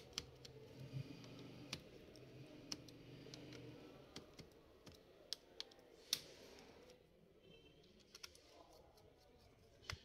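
Faint, scattered small clicks of a screwdriver turning and seating the tiny screws of a laptop's heat sink and cooling fan, the loudest click about six seconds in.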